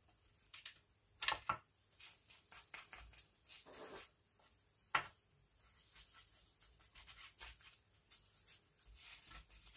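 Faint rubbing and rustling of fingertips on paper and on a layered die-cut gear piece as wax is worked in by finger. A few sharp clicks come about a second in, and a sharper one about five seconds in.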